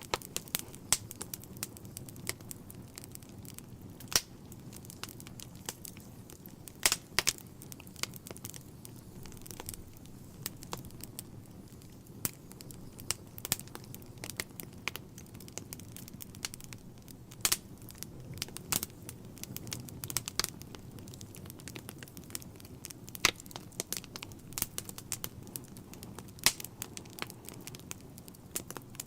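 Log fire crackling in a fireplace: irregular sharp pops and snaps, a few much louder than the rest, over a steady low rumble of the burning wood.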